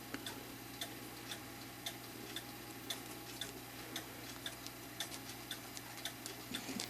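A mechanical clock ticking, about two sharp ticks a second, over a steady low hum.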